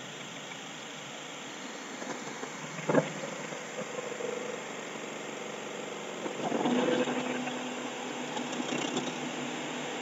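1998 Mazda 626 engine idling as electrical accessories are switched on: a sharp click about three seconds in, then a steady hum joins, and around six and a half seconds the sound grows louder with a new lower hum as further load comes on. The rough idle under accessory load is the fault being chased.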